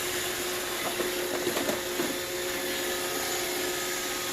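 iRobot Roomba 655 robot vacuum running over a rug: a steady whirring hiss with an even hum, and a few faint ticks between one and two seconds in.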